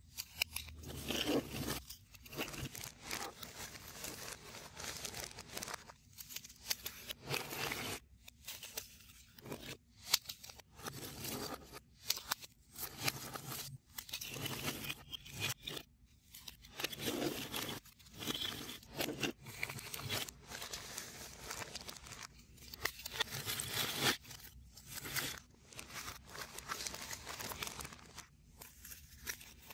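Hands rummaging through a plastic zip-top bag and shuffling stiff 3D puzzle pieces on a tabletop: the bag crinkles and the pieces rustle and click against each other in irregular bursts.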